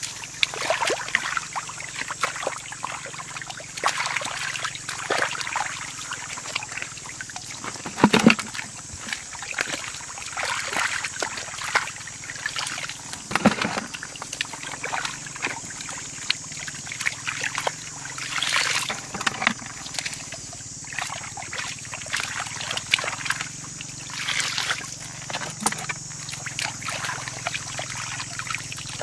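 Muddy water sloshing and splashing as a plastic basket is scooped through a shallow puddle, with water trickling out through the basket; the splashes come irregularly, a few louder than the rest.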